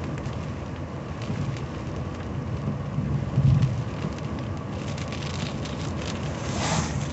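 Rain hitting the windshield of a 1985 Cadillac Cimarron driving on a wet road, heard inside the cabin over a steady low rumble of road and wind noise. A louder low swell comes about three and a half seconds in.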